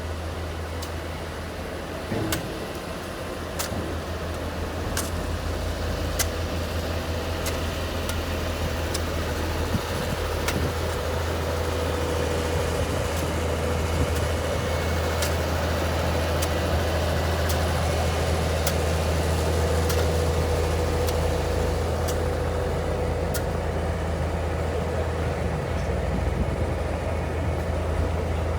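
Steady motor vehicle engine and road noise with a constant low hum, growing slightly louder over the first half, with a few faint clicks scattered through it.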